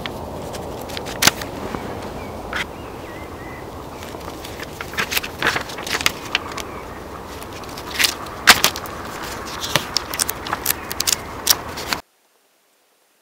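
Handling noise: scattered sharp clicks and crackles over a steady hiss, thickest in the second half and cutting off suddenly about twelve seconds in.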